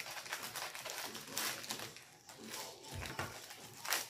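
Plastic packaging rustling and crinkling as a padded mailer is opened and a rolled canvas in its plastic sleeve is handled, with a few sharper crinkles and a soft thump about three seconds in.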